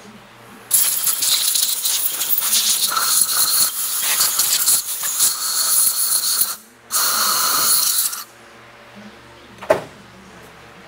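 Aerosol brake cleaner spraying: one long hiss of about six seconds, a brief stop, then a shorter burst of just over a second, dissolving black goo in hard-to-reach spots of a 4L60E transmission part. A single sharp knock comes near the end.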